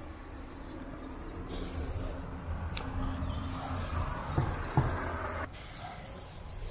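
Aerosol spray paint can hissing in two spurts as lines are sprayed on a wall: a short one about a second and a half in and a longer one of about two seconds a little later. Two sharp clicks come during the second spurt.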